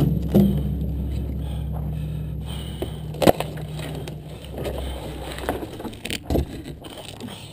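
An engine running steadily, which stops about two-thirds of the way through, with a sharp knock about three seconds in and a couple of dull thuds after the engine stops.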